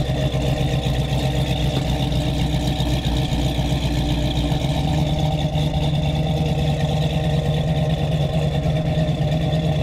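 Motor vehicle engine running steadily at an even speed.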